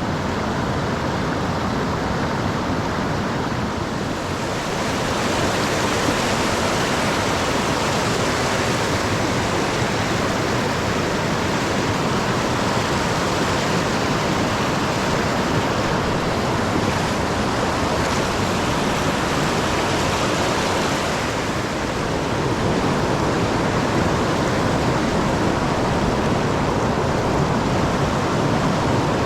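River water rushing steadily, an even noise of flowing current.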